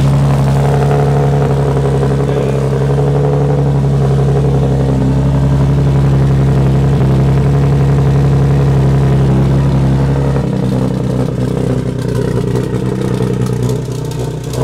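Nissan 370Z's 3.7-litre V6 idling steadily on its first run after a turbo kit install. About ten seconds in, the tone shifts slightly and gets a little quieter.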